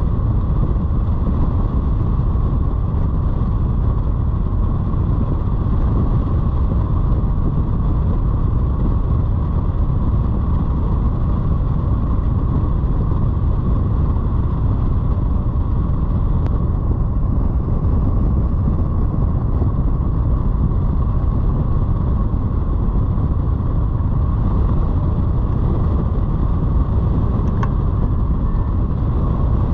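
Steady rush of wind over the microphone from a hang glider's airspeed in flight, with a faint steady tone running through it.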